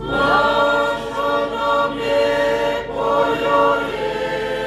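A group of voices singing a hymn together in slow, held notes.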